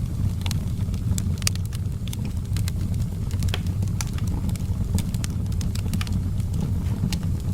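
Wood fire burning in a fireplace: irregular sharp crackles and pops over a steady low rumble of the flames.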